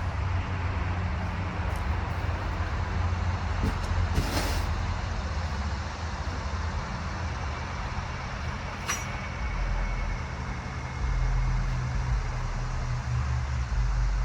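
Steady low rumble of a vehicle running, which grows a little louder about eleven seconds in. A short sharp clatter comes about four seconds in and a thin click near nine seconds.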